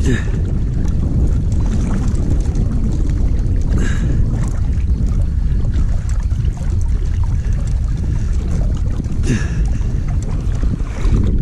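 Loud, steady low rumble of water moving and wind buffeting the camera microphone as the angler moves over shallow lake water, with a few brief splashy hisses about four and nine seconds in.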